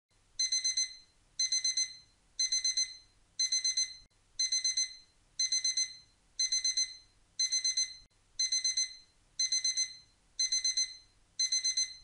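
Digital timer alarm beeping in bursts of four quick high-pitched beeps, repeating about once a second: the countdown has reached zero and time is up.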